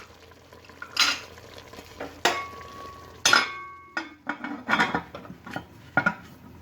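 A metal cooking utensil knocking and scraping against a cooking pot while stirring, about six clanks roughly a second apart. A couple of them ring on briefly.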